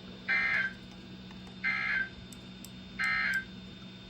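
Emergency Alert System SAME header from a NOAA Weather Radio: three short bursts of buzzy digital data tones, about a second apart. The header opens a severe thunderstorm warning. A steady low hum runs underneath.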